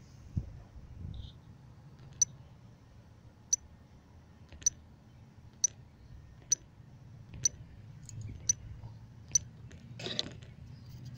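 A series of short, sharp clicks, roughly one a second and unevenly spaced, over a faint low rumble, with a brief louder rustle about ten seconds in.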